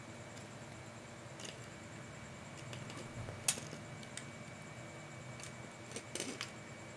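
Scattered small clicks and taps of small parts and tools being handled, with one sharp click about three and a half seconds in and a short cluster of clicks near the end, over a faint steady high tone.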